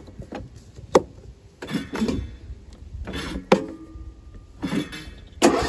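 Sharp clicks and knocks from the controls of a new John Deere S170 lawn tractor as the choke is changed, with a few short bursts of sound between them. Near the end a much louder, steady sound begins as its 24 hp Briggs & Stratton V-twin is cranked again. It is a hard first start, which the owner puts down to fuel not yet having filled the lines.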